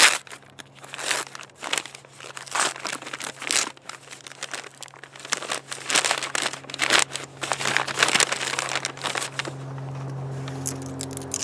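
A USPS mailer envelope being crumpled and torn open by hand: irregular crinkling and ripping. Near the end the rustling stops and a steady low hum takes over.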